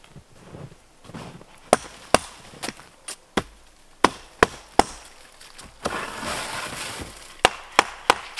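Hatchet chopping into pallet wood: a series of sharp wooden chops about half a second apart, then a rustling, scraping stretch about six seconds in, then three quick chops near the end.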